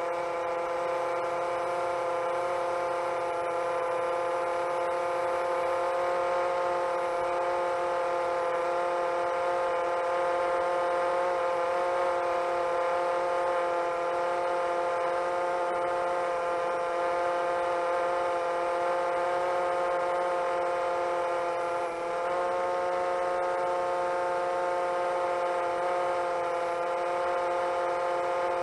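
Seven-inch long-range quadcopter's motors and propellers whining steadily in cruise, several close tones together. About three quarters of the way through, the pitch shifts slightly as the throttle changes.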